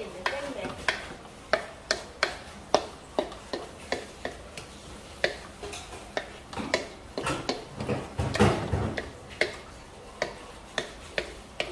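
Wooden spatula knocking and scraping against a metal wok while stir-frying sausage and vegetables, in irregular knocks about two a second.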